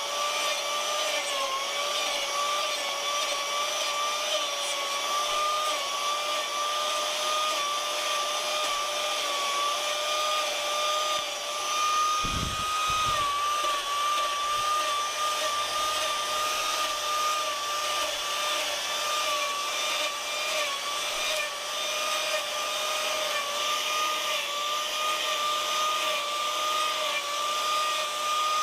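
An electric saw's motor driving a rotary carving gouge, running steadily with a high whine that dips slightly in pitch now and then as it works the wood, and a single low thump about twelve seconds in.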